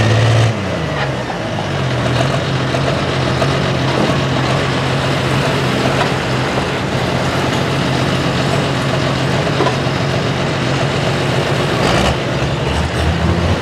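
Pro stock pulling tractor's diesel engine winding down from high revs about half a second in, then idling steadily after the pull.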